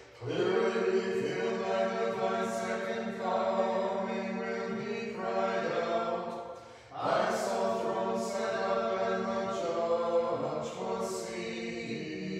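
Unaccompanied choir singing Orthodox Vespers chant in long held phrases, with a short break about seven seconds in before the next phrase.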